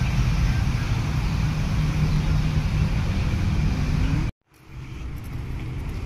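Steady low rumbling outdoor noise, of the kind made by road traffic or wind on a microphone. It cuts off abruptly about four seconds in, then comes back more quietly.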